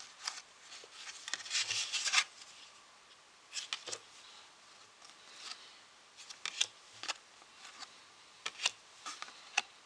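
A Memento Mori deck of playing cards being handled: cards rubbing and sliding against each other, with scattered light clicks as cards are pulled out and set down.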